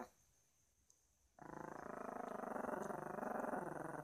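Small dog growling: a steady growl that breaks off at the start, resumes about a second and a half in and runs on nearly to the end. It is a warning growl from a dog guarding the woman it lies on against a man who reaches to touch her.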